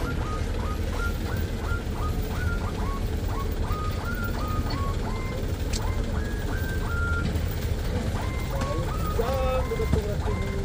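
Heavy truck engine running with a steady low rumble, under a quick, repeating chirp that jumps from a lower to a higher note a couple of times a second.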